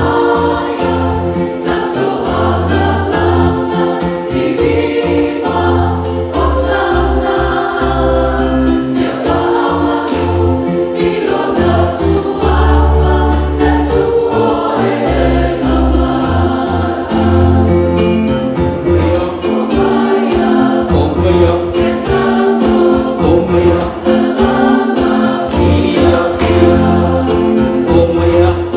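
A choir singing a Christian gospel song in harmony, with instrumental backing and a deep bass line that changes note every second or two.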